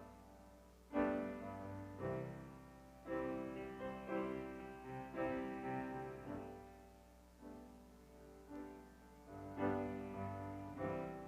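Solo piano playing a slow, soft introduction: chords struck one after another and left to ring and fade.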